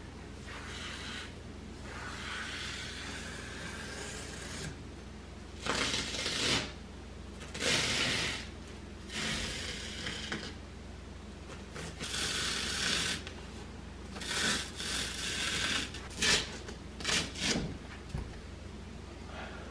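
A knife cutting through a thick foam mattress pad in a series of short strokes, several of them quick and close together near the end. The low-grade foam tears rather than slicing cleanly, leaving a ragged cut.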